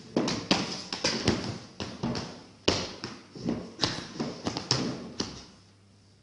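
A quick, irregular series of about a dozen sharp taps and thumps, stopping about five and a half seconds in.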